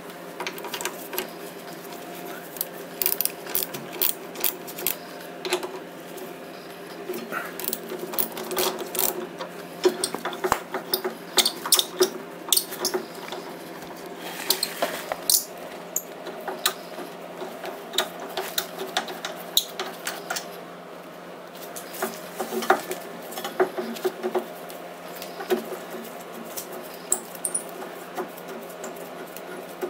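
Hand tools clicking and clinking on metal as the two bolts holding a scooter's front brake caliper are undone: many short, sharp clicks in irregular clusters over a steady hum.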